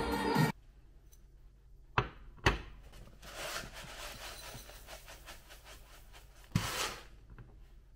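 Small handling noises in a small room: two sharp clicks about half a second apart, a stretch of rubbing with fine ticks, and a single thud near the end.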